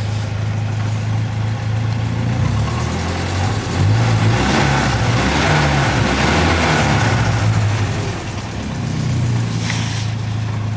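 Carburettor car engine idling evenly, its revs rising a little about two seconds in and settling back to a steady idle near the end. It runs smoothly with no misfire, its sticking carburettor pistons having been freed.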